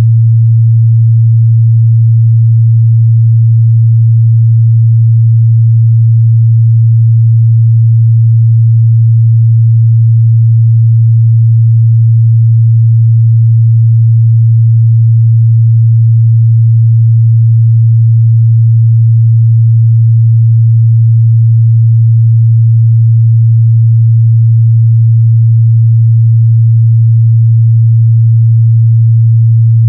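A steady, loud 114 Hz sine-wave test tone: a pure, unchanging low hum.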